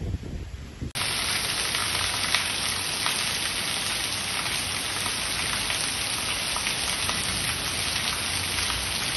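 Wind buffeting the microphone for about a second, then a steady, dense hiss of heavy rain pouring onto a paved street.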